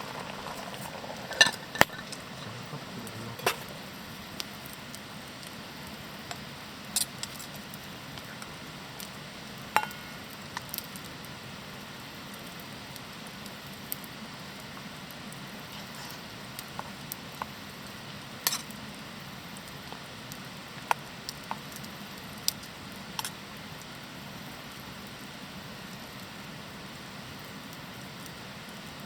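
Wood campfire crackling: irregular sharp pops over a steady low hiss, most frequent in the first few seconds.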